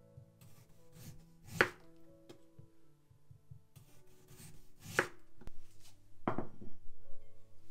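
Chef's knife slicing through a beetroot and coming down on a bamboo cutting board: sharp knocks of the blade on the board about a second and a half in and at about five seconds, and another soon after.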